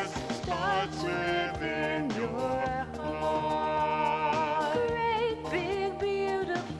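Music: a song with singing voices holding long notes and gliding between them.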